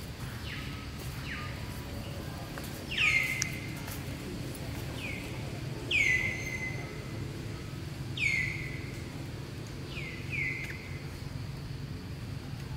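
Short high-pitched animal calls repeated every one to three seconds. Each is a quick downward sweep that levels off into a brief held note, the loudest three coming about three, six and eight seconds in.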